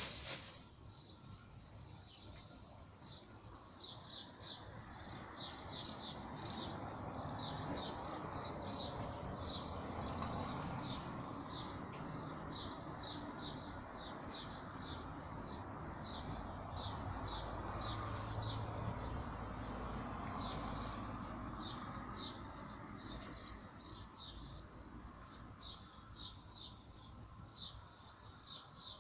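Small birds chirping over and over, several short high chirps a second without a break, over a steady low background rumble.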